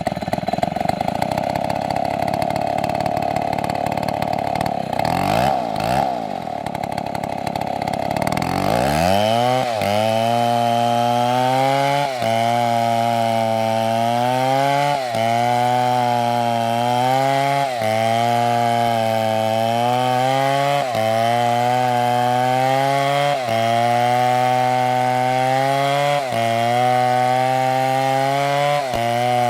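Chainsaw running at high revs. About nine seconds in it drops to a lower, labouring pitch as it bites into the wood, sagging and picking back up again every few seconds through the cut.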